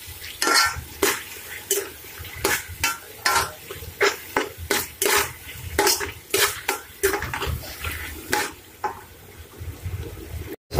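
A steel spoon scraping and knocking against the sides and bottom of an aluminium cooking pot, in irregular strokes about one or two a second, while an onion-and-tomato masala is stirred and fried in oil. The sound cuts out abruptly for a moment near the end.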